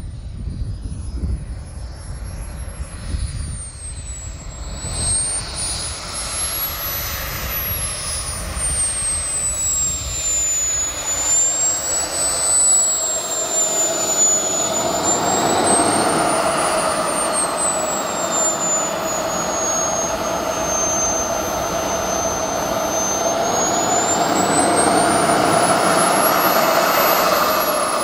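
Small jet turbine (Jetman 160) of a large RC model jet running as it taxis: a high whistle that rises and falls with the throttle over a steady rushing hiss, growing louder as it comes close. Near the end the whistle drops sharply in pitch as the turbine spools down.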